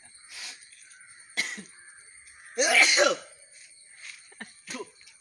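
People sneezing and coughing, set off by nasal snuff they have just taken up their noses: a short burst about a second and a half in, the loudest, voiced sneeze about halfway, and a shorter one near the end.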